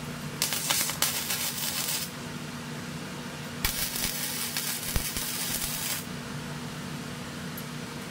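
MIG welding arc running in two short welds on an exhaust manifold, the first about a second and a half long and the second about two and a half seconds, starting and stopping abruptly. A steady low hum sits underneath.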